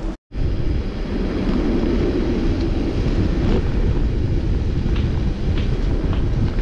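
Steady rushing wind buffeting the microphone, with road noise, while riding along a mountain road. It is briefly cut off just after the start.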